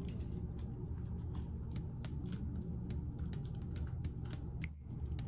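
Irregular light clicks and small rattles of hard plastic parts being handled and fitted: the phone holder and tripod of a ring-light stand being adjusted by hand, over a steady low hum.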